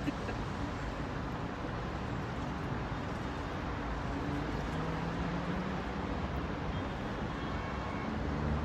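Steady low rumble of vehicle noise, with a faint low hum coming in near the end.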